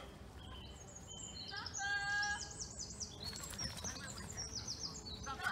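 Small birds singing, quick high chirps and trills, with a drawn-out high whining call about two seconds in and again near the end.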